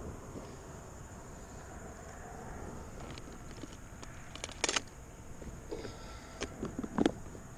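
Plastic tackle box being handled: a scatter of sharp clicks and knocks from about halfway, two loudest near the middle and near the end as the lid swings shut, over a steady high drone of insects.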